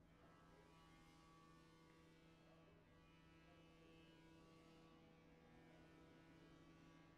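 Near silence: a faint, steady electrical mains hum.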